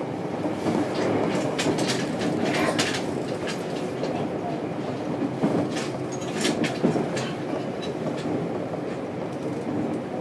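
Running sound heard aboard a JR Kyushu 303 series electric train, in motor car MoHa 303-102: a steady rumble of the train under way, with wheels clicking over rail joints every second or so.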